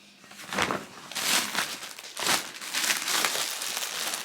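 Packaging crinkling and rustling in several short bouts as clothing items are handled and unpacked.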